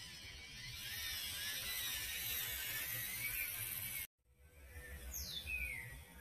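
Axial SCX24 mini RC crawler's small electric motor and gears whirring as it drives through grass, the pitch wavering with the throttle. It cuts off abruptly about four seconds in, and a couple of falling whistled chirps follow.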